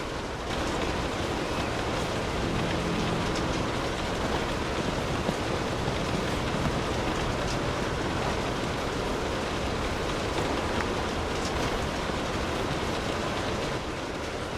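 Steady rainfall: an even hiss of many drops, a little louder from about half a second in until near the end.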